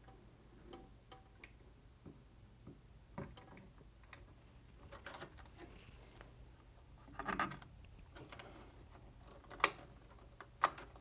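Light clicks and knocks of a CPU cooler being set onto the processor and hooked into its mounting clips, with a few sharper clicks near the end.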